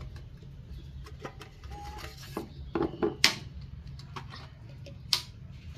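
Plastic formula scoop scraping and tapping against a metal milk-powder tin: a run of light clicks and scrapes, with two louder knocks about three and five seconds in.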